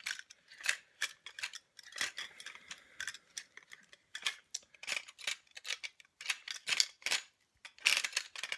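Lever-action takedown rifle being taken apart by hand, its magazine tube unthreaded and barrel section twisted free of the receiver: irregular metal clicks and ticks, several a second.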